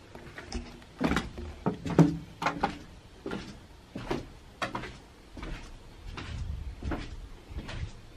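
Footsteps and dull knocks while walking, about one every half to three-quarters of a second, with the loudest knock about two seconds in.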